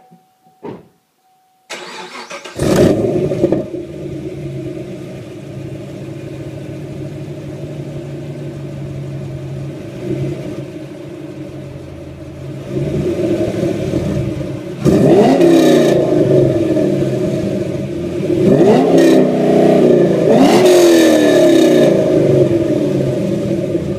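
Fifth-generation Chevrolet Camaro V8 breathing through Pfadt Tri-Y headers and a Magnaflow exhaust. It cranks and fires about two seconds in with a loud flare of revs, then settles to a steady idle. It is revved several times, and the blips grow longer and louder over the last ten seconds.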